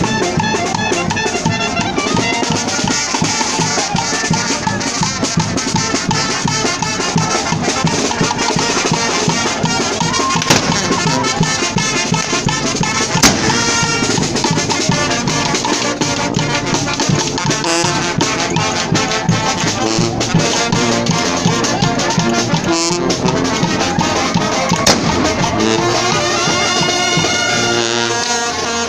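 Brass-band music with trumpets, trombones and drums playing a steady dance rhythm.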